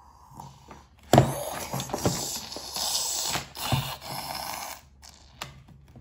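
Electronic roar sound effect from a dinosaur toy's small speaker. It starts about a second in and lasts nearly four seconds, with a few sharp plastic knocks from the toys being handled.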